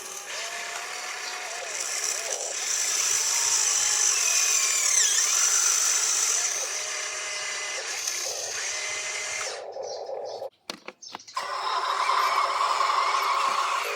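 Small electric motors of radio-controlled construction models whining, the pitch rising and falling as they speed up and slow down. The sound cuts out in a few quick breaks about ten and a half seconds in, then comes back.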